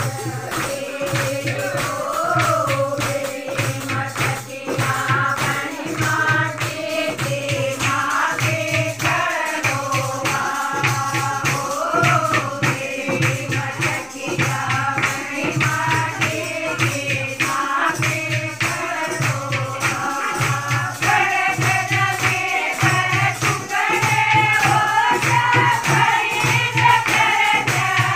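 A group of women singing a folk song together to handclapping and a steady, evenly repeating drum beat; the singing grows a little louder near the end.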